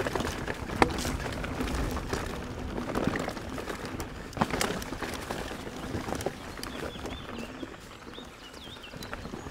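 Specialized Enduro mountain bike rolling down a dirt trail: a steady rush of tyre noise with scattered knocks and rattles from the bike over bumps. A bird chirps a few times near the end.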